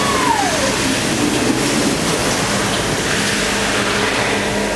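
CNC lathe thread-whirling (cyclone milling) a long threaded shaft under flood coolant: a steady spraying hiss of coolant over a low machine hum. A high whine drops in pitch in the first second.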